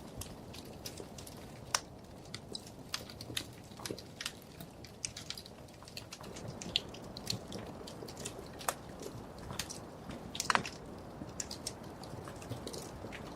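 Wood fire crackling: irregular sharp pops and snaps over a steady low rush of flame, with a louder pop near the start and another about ten seconds in.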